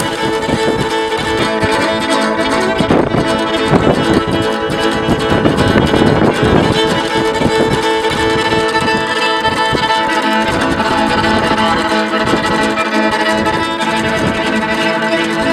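Music led by a fiddle playing long, held notes over a steady accompaniment.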